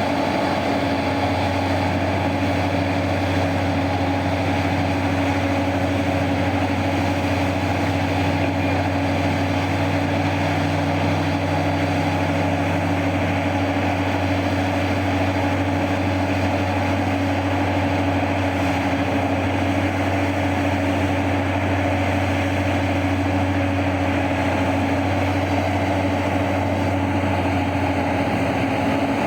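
Heavy diesel engine of large mining machinery running steadily, a deep even hum that holds one pitch and loudness throughout.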